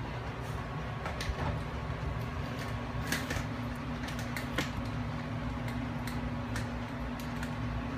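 Dillon XL650 casefeeder running: a steady electric-motor hum with scattered sharp clinks of brass cases in the rotating plastic bowl.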